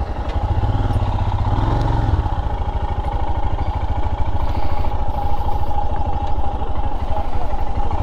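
Royal Enfield Himalayan's 411 cc single-cylinder engine running with a fast, even beat of firing pulses as the bike pulls away and rides on. The engine note is strongest between about half a second and two seconds in.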